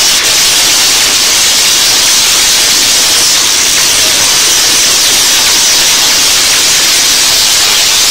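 Tesla coils discharging, with lightning arcs striking the performers and the rods in their hands: a loud, steady crackling hiss of electric sparks.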